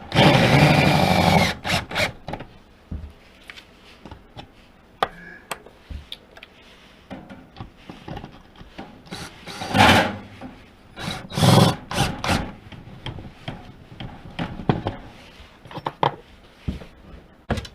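Wooden mounting blocks being worked off and handled with tools: a loud scraping, rasping stretch in the first second and a half, then scattered knocks and clicks, with two louder bursts about ten and eleven and a half seconds in.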